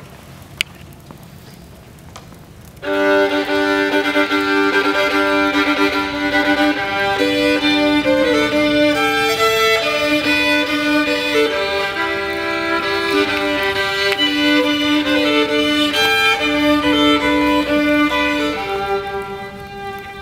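Violin playing long held notes, often two notes at once, coming in about three seconds in after a quiet stretch and dropping off near the end.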